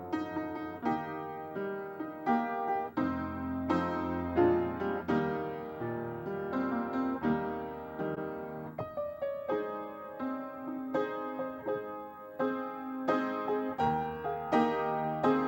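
Piano playing a continuous piece of chords and melody notes, each struck sharply and left to ring out.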